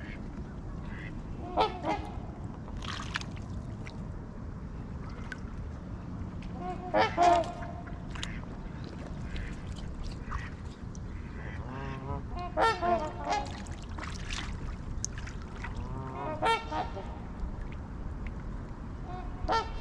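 Waterfowl honking in scattered short bouts of calls, the loudest about seven seconds in, over a steady low background rumble.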